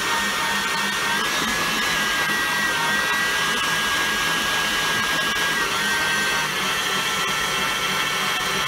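Electric stand mixer running steadily, beating sweet potato pie batter in a glass bowl, with a steady hum and a high motor whine that dips slightly in pitch a couple of times.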